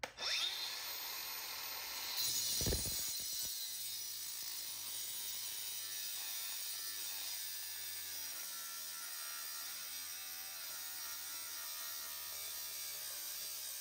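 Angle grinder cutting through a seized steel leaf-spring shackle bolt, a steady high grinding hiss that runs on without a break.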